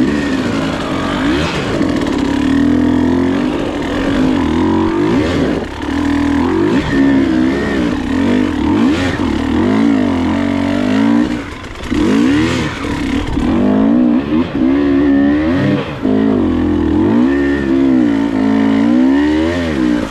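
KTM dirt bike engine running close by and being revved, its pitch rising and falling over and over, with a couple of brief drops in the middle.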